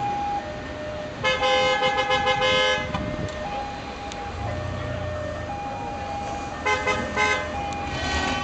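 Car horns tooting in quick repeated bursts, once about a second in and again near the end, over the low running of rally car engines pulling away slowly in a line.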